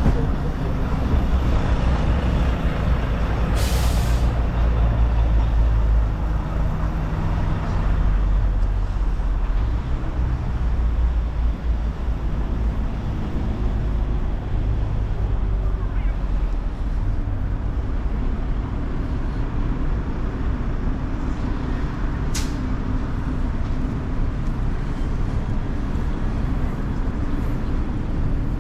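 A heavy vehicle's diesel engine running close by in street traffic, with a short hiss of air brakes about four seconds in and a sharp click later on.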